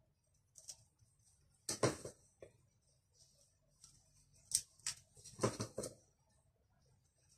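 Food-prep handling noise: hands pressing sushi rice onto a nori sheet on a plastic-wrapped board, with faint crinkling. Two short bouts of louder clattering come about two seconds in and again around five seconds in, the second as rice is scooped from the metal rice cooker pot.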